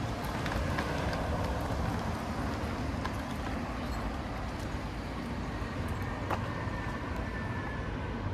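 City street ambience: a steady low rumble of traffic with scattered light clicks of footsteps on the pavement.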